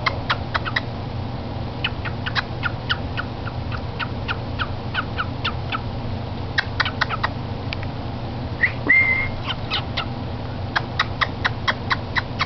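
Cockatiel making kissing noises: runs of quick, short smacking clicks in clusters, with one brief whistled chirp, rising then held, about nine seconds in.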